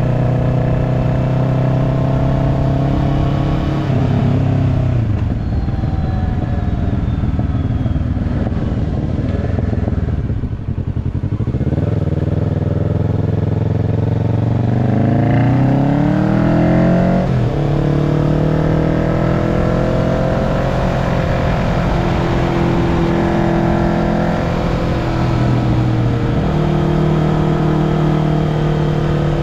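Kawasaki Ninja 650's parallel-twin engine running loudly through an aftermarket slip-on exhaust. Its pitch falls from about four seconds in to about eleven, climbs again over the next five seconds or so, then holds steady.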